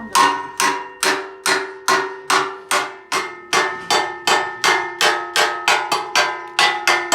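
Hand hammer striking steel in a steady rhythm, about two and a half blows a second, each blow ringing with a metallic tone that dies away before the next.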